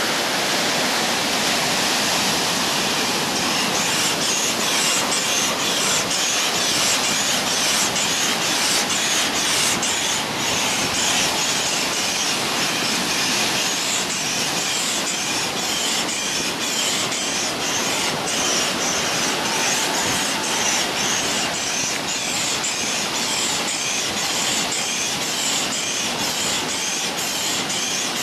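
Air pump running steadily, blowing air through a hose into the leg chamber of an inflatable vinyl ride-on wolf as it fills, with ocean surf underneath.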